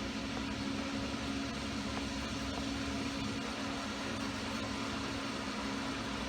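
Steady machine hum with an even hiss and a held low tone, unchanging throughout, like a fan or similar appliance running in the room; no tool clicks or knocks stand out.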